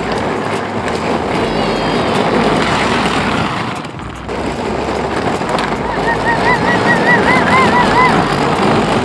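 Children's electric ride-on quad bike (Power Wheels) driving on the street: a steady rolling rumble of hard plastic wheels and the electric drive, dipping briefly about four seconds in. A wavering high-pitched tone is heard for about two seconds in the second half.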